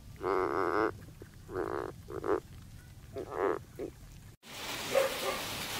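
Banded bullfrogs croaking from a crowded bucket: four drawn-out, buzzy croaks, the first the longest. The sound then cuts off abruptly to a steady hiss.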